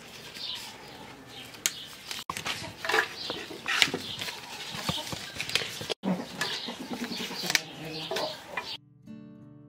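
Lemon leaves rustling and crackling as they are torn off their stems and dropped into a blender jar, with many short crisp strokes, while birds call in the background.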